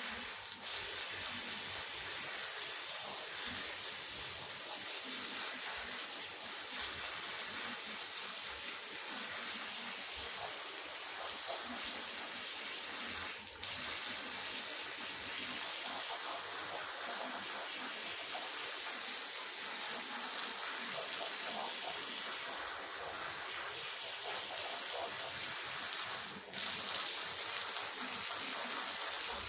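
Steady rushing, water-like noise of a carpet being machine-washed, wet scrubbing or rinsing, briefly dropping out twice, about halfway and near the end.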